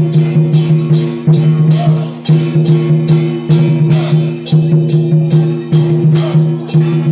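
Music with a fast, even beat of about four strokes a second over a held low tone.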